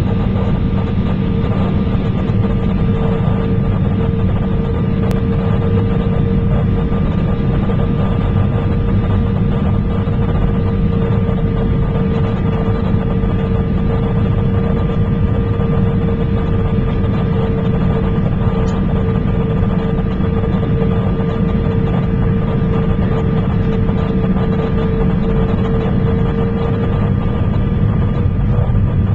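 Airbus A319 cabin noise on approach: the jet engines and airflow make a steady rumble and hiss with a constant whine. Near the end the whine shifts a little higher and the noise grows slightly louder.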